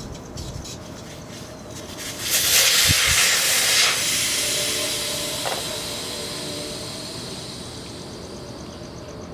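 Air hissing out of a motocross rear tire's inner tube through the open valve stem once the valve core is removed, starting about two seconds in, loudest for a couple of seconds and then tapering off as the pressure drops. A couple of short low knocks sound near the start of the rush.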